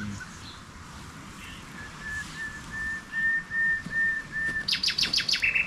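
Songbird singing: a row of about eight short whistled notes on one steady pitch, about three a second, then a quick run of sharply falling notes and a short buzzy note at the end, the loudest part.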